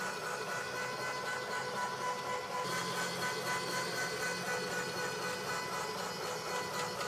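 A motor running steadily, a continuous hum with a steady whine over it.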